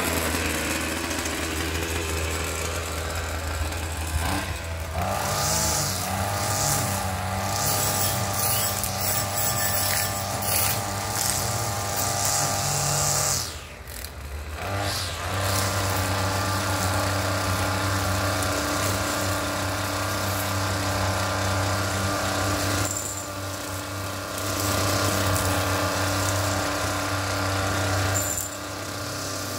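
String trimmer running steadily as it cuts grass, its speed dropping briefly about halfway through before it picks back up.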